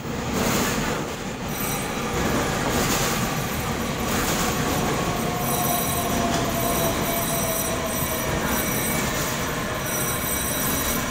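Taiwan Railway EMU3000 electric multiple unit running along the platform of an underground station: a steady rumble of wheels on rail with a thin, high steady squeal above it. In the middle a tone slowly falls in pitch.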